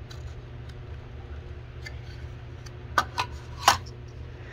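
A few light clicks and taps, three of them a little after the middle, as a small N-scale model barn is handled. A steady low hum underlies them.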